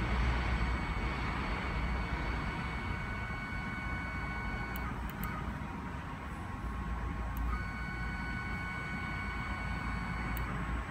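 Multi-spindle CNC wood router running: a steady low rumble under a high, many-toned spindle motor whine. The whine drops out about five seconds in, with a few sharp ticks, and comes back a couple of seconds later.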